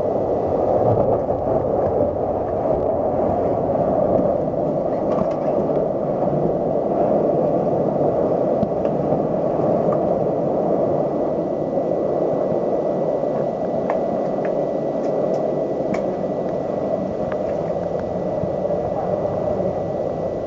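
Hurricane wind blowing hard against the building, a steady loud rushing noise heard from inside a room. A faint thin whistle joins it about halfway through.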